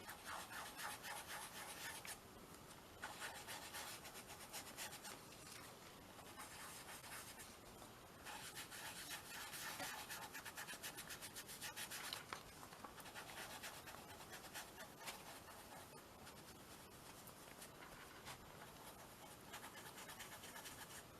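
Faint rubbing and scratching of colour being worked through a stencil onto a small canvas. It comes in stretches of a few seconds with short pauses between.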